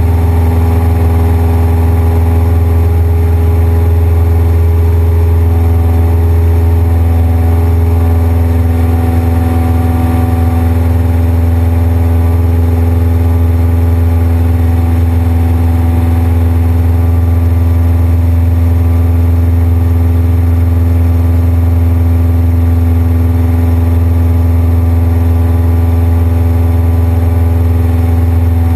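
Cessna 172's piston engine and propeller running steadily in flight, heard inside the cockpit: a deep, even drone that holds the same pitch throughout.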